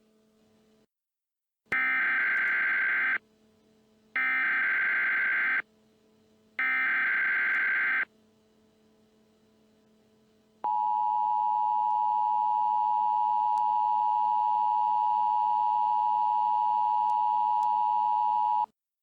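Emergency Alert System tones: three SAME header data bursts of shrill digital warbling, each about a second and a half long and about a second apart. Then comes the two-tone attention signal, a steady dual tone held for about eight seconds that cuts off abruptly.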